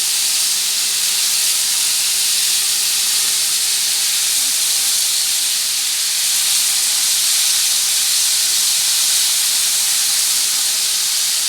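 Thin strips of pointed gourd (potol) frying in hot mustard oil in a pan: a steady, loud sizzle.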